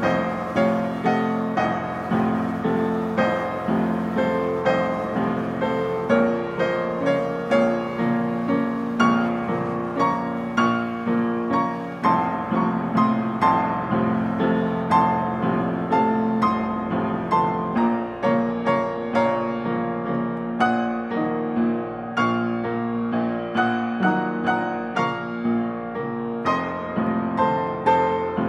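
Piano music: a gentle tune of struck notes with a steady pulse, a strong beat about once a second.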